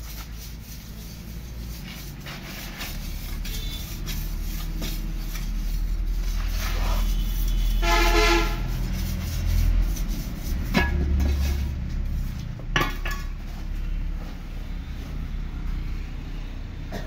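Low rumble of passing traffic, with a vehicle horn tooting once, briefly, about eight seconds in. Two sharp knocks follow a few seconds later.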